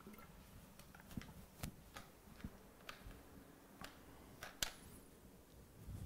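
Faint, irregular clicks and taps, about a dozen, over quiet room tone, the loudest a little over four and a half seconds in.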